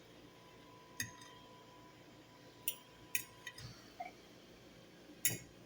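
Fork or other cutlery clinking against a plate while eating: several sharp, separate clinks with a brief ring, the loudest one near the end.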